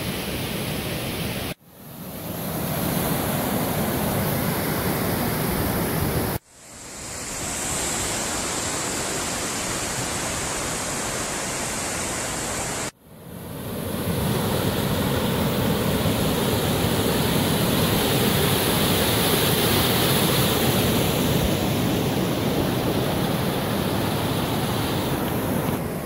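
Rushing water of a waterfall pouring over rock into a stream, a steady noise. It drops out suddenly three times and fades back in each time.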